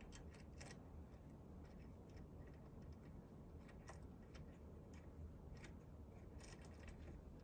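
Near silence with scattered faint metal clicks and ticks as a small metal mounting bracket, washers and 4 mm screws are handled and fitted by hand, over a low steady hum.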